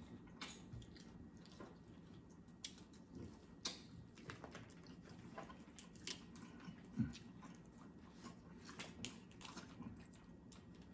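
Faint eating sounds at a seafood boil: scattered small clicks and crackles of shrimp and snow crab shells being peeled by gloved hands, with chewing, and one soft knock about seven seconds in.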